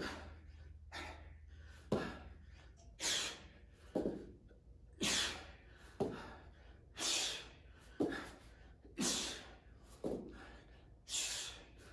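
A man breathing hard from exertion: short, forceful breaths in a steady rhythm, about one a second.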